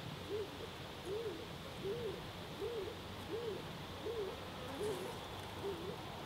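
A bird's low hooting call: a run of about nine evenly spaced notes, each rising and then falling in pitch, coming about three-quarters of a second apart.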